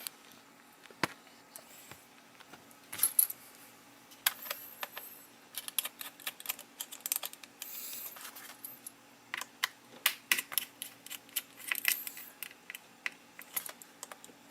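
Irregular plastic clicks, taps and light clatter from a laptop's bottom cover being fitted back on and handled, with a few sharper knocks.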